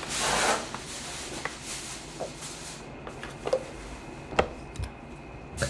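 Close-up mouth sounds of eating stewed chicken: chewing and lip smacking, opening with a short breathy rush and followed by several sharp, separate clicks.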